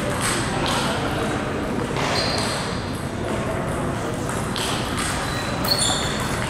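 Table tennis ball clicking off bats and table during match play, with a few short high squeaks in between, in a large hall.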